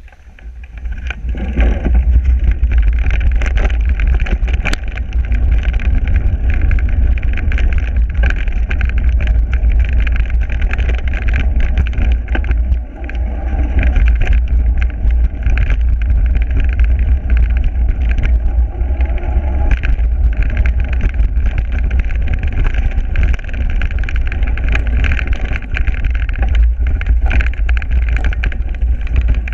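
Mountain bike ridden along a path and over rough forest ground: heavy wind rumble on the camera microphone with tyre noise and frequent clattering knocks as the bike jolts over bumps. It swells up over the first second or two.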